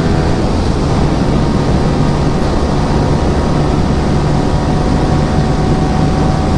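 Yamaha R15 V3's single-cylinder engine through an aftermarket Akrapovic exhaust, running at a steady high-speed cruise, its note holding level under a constant rush of wind and road noise.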